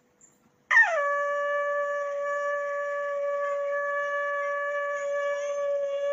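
Conch shell (shankh) being blown. After a short quiet start, the note begins less than a second in with a quick drop in pitch, then holds as one steady, unwavering tone.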